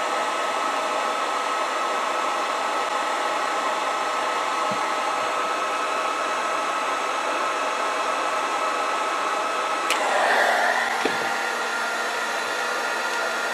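Heat gun running steadily, an even blowing rush with a steady whine over it, while shrinking heat-shrink tubing over crimped wire connectors. About ten seconds in the sound swells briefly and its tone shifts a little.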